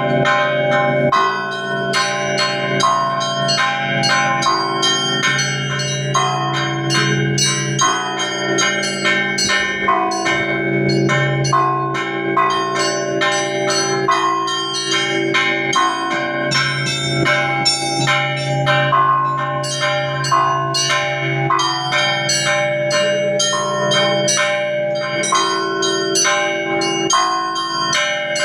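Russian Orthodox church bells ringing in a continuous peal (zvon): rapid strikes on the small bells over the lasting hum of the larger bells.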